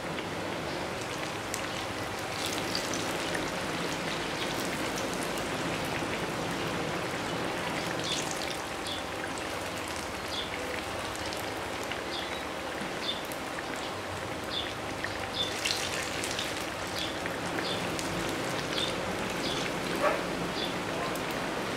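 Battered bananas deep-frying in hot oil during the first fry: a steady sizzle, with scattered light crackles from about eight seconds in.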